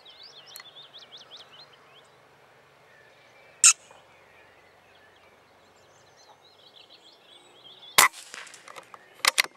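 Birds singing, with sharp cracks breaking in. One crack comes about a third of the way in, and a louder one comes about eight seconds in with a short ringing tail. A quick run of four or five cracks follows near the end.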